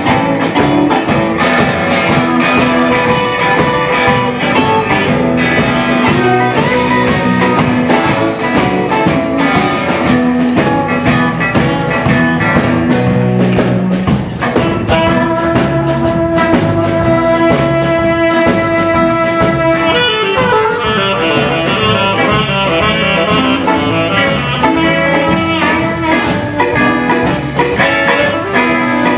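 Live blues band playing: electric guitars, bass, drums and saxophone. About halfway through there are several seconds of long held notes, then the playing turns busier.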